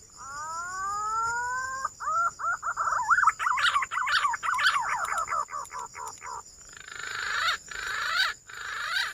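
Green pigeon (punai) calling. A drawn-out rising whistle leads into a fast run of warbling whistled notes, which turn into rougher, wavering notes near the end, over a faint steady high-pitched whine.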